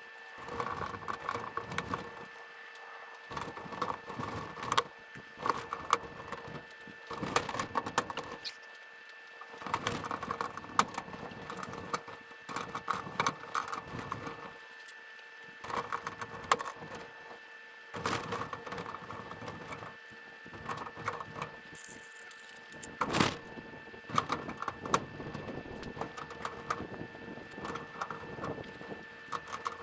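Ring pliers clicking as metal rings are crimped around the steel wires of cattle panels, with the wire panels rattling. The clicks come in repeated short bursts with pauses between, and one sharper snap a little past two-thirds of the way through.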